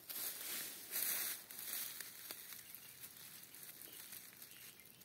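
Rustling of tall grass and brush, a dry crinkling hiss that is loudest about a second in and then settles to a lower, steady rustle.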